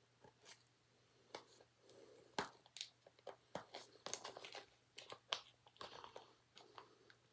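Faint, irregular crackling and clicking of plastic packaging being handled and peeled, with a few sharper snaps.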